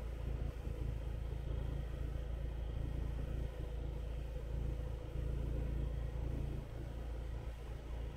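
Steady low rumble of a motorbike riding along at an even pace, heard from the bike itself.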